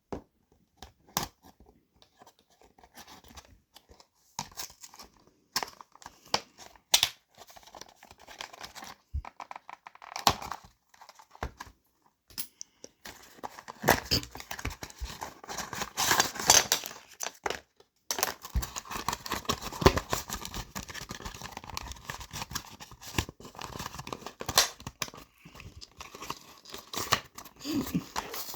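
Toy blister packaging being opened: plastic and cardboard crinkling, tearing and being cut, with scattered clicks and handling knocks at first, then steadier tearing and rustling from about halfway.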